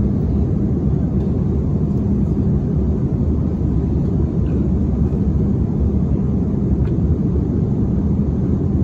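Airliner cabin noise in flight: a loud, steady low rumble.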